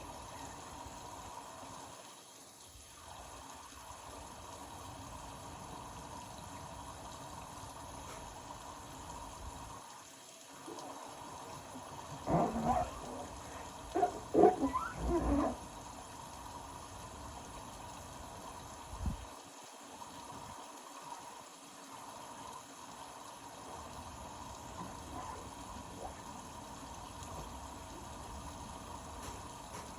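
Indesit Innex BWE 91496X washing machine running a wash, with a steady sound of water moving in the drum. About halfway through come a few louder, irregular sounds of wavering pitch, then a short low thud.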